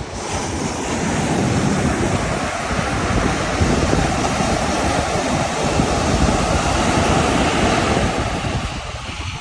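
Ocean surf washing in, with wind buffeting the microphone; the rush swells about a second in and eases near the end.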